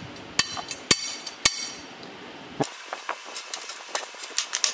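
Metal conduit and its push-button spring clip clicking and clinking as they are handled: four sharp metallic clicks with a short ring in the first second and a half, then lighter, quicker clicks and rattles as the half-inch conduit is slid inside the larger pole.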